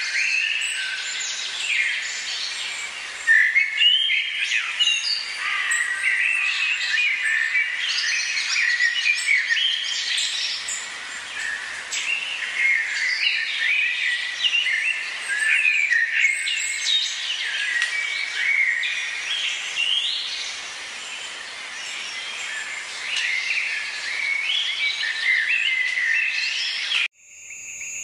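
Chorus of many Amazon rainforest birds calling and chirping over one another, dense and continuous. About a second before the end it cuts abruptly to a steady, high insect trill.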